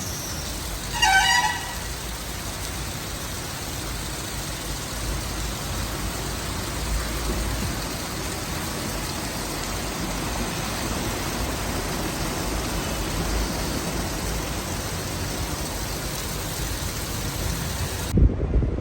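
Steady noise of rain and traffic on a wet road, with a short vehicle horn toot about a second in.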